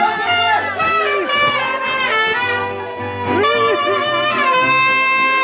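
Mariachi trumpet playing a melody with sliding notes over the band's guitars, settling into one long held note near the end.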